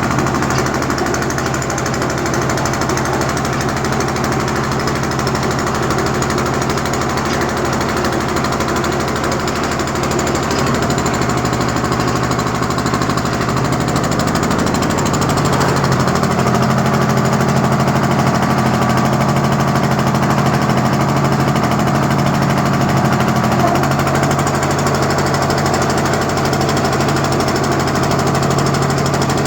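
Engine-driven construction machine running steadily with a rattling, vibrating sound; its low engine note shifts a little about halfway through.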